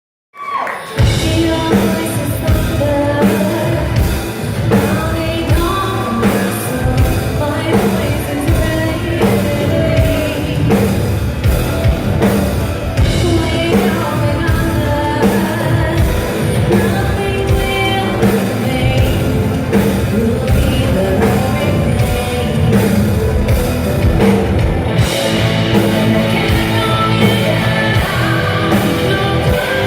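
A symphonic metal band playing live, loud, with a woman singing lead over a heavy rock backing and a steady beat. The music starts suddenly just after the opening moment and swells fuller about 25 seconds in.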